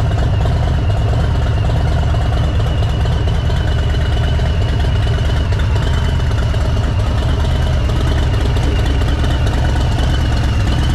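A vehicle engine idling steadily, deep and even, with a faint steady high tone above it.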